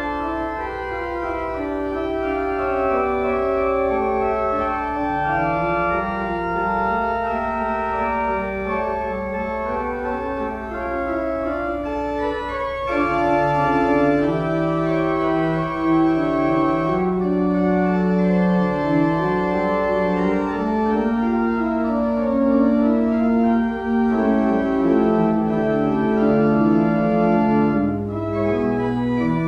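Organ prelude: slow, sustained chords over a bass line that steps from note to note.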